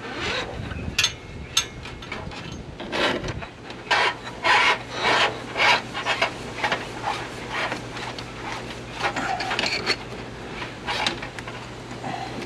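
A nitrous feed line being worked through the truck's frame, rubbing and scraping against it in irregular strokes, loudest for a couple of seconds in the middle. A faint steady low hum starts about three and a half seconds in.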